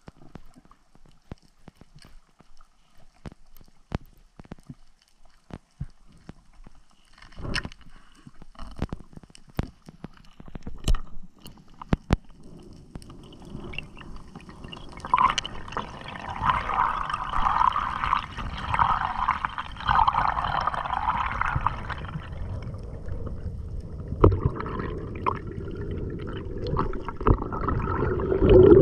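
Underwater sound through a camera's housing: scattered sharp clicks and ticks at first, then from about halfway a rushing, gurgling water sound with pulsing surges as the camera rises toward the surface.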